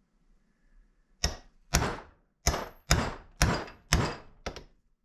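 Hammer blows on a punch driven into a thick rubber engine-mount pad on a wooden block, punching a hole. There are seven sharp strikes about twice a second, starting about a second in, each with a short ring.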